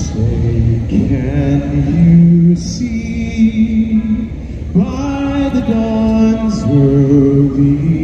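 A solo voice singing slow, long-held notes without accompaniment, carried through the stadium loudspeakers.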